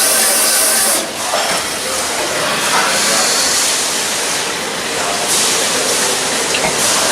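A high-pressure jet hissing loudly and steadily, its tone shifting abruptly about a second in and again later on.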